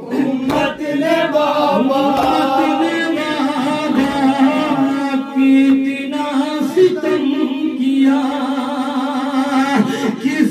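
A group of men chanting an Urdu noha, a Shia mourning lament. A lead voice on a microphone sings with the others in unison, in long, drawn-out wavering lines.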